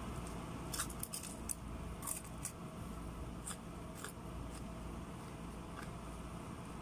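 Scattered crisp crackles and clicks as crispy fried broast chicken is torn apart by hand and eaten over a foil tray, thickest in the first two and a half seconds, over a steady low background hum.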